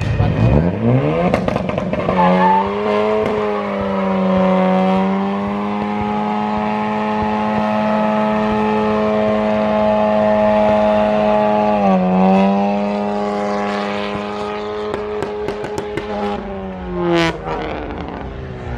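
Car engine revved up and held at high revs for about fifteen seconds, with a brief dip about twelve seconds in, then let off near the end.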